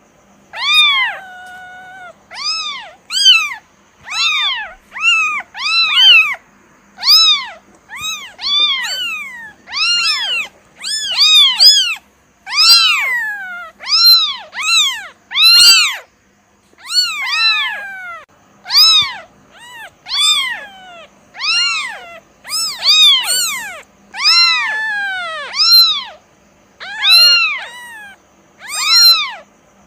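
Kitten meowing over and over, about one or two high-pitched calls a second, each rising and then falling in pitch.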